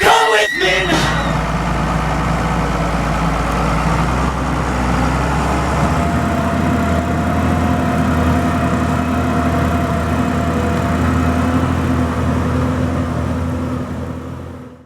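Case Maxxum 5150 tractor's diesel engine running steadily. About six seconds in its note changes slightly, and near the end the sound fades out.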